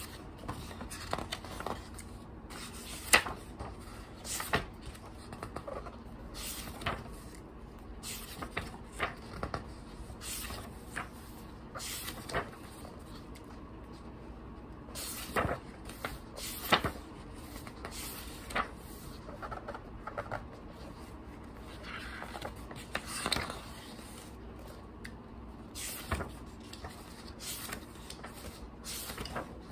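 Pages of a hardcover children's picture storybook turned one after another by hand: paper rustling and flapping, with sharp snaps as pages flip over and land, at an uneven pace with short pauses.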